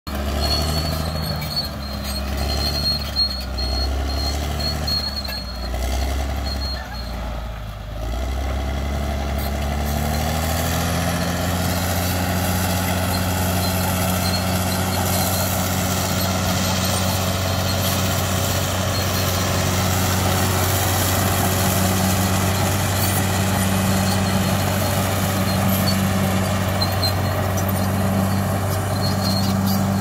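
Crawler bulldozer's diesel engine running under load as the blade pushes soil. For the first several seconds its pitch wavers unevenly; at about ten seconds it rises and settles into a steady, higher drone.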